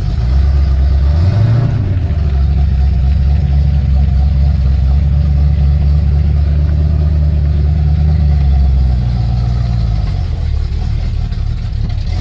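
Ford XC Falcon's engine running just after start-up, heard from inside the cabin: a steady low note that picks up about a second and a half in, holds, then drops back near ten seconds as the car creeps along under its own power. The owner reckons the carburettor needs sorting out.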